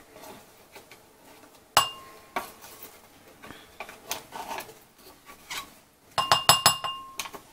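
A wooden spatula and plastic yogurt cup knocking and scraping against a glass mixing bowl as the yogurt is scraped out. One ringing clink comes about two seconds in, then soft scrapes. Near the end a quick run of taps sets the bowl ringing.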